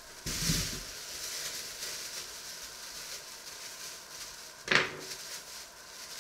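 Thin plastic bag rustling and crinkling as it is set down on a wooden counter and its knot is worked open by hand, with a single sharp knock a little before the end.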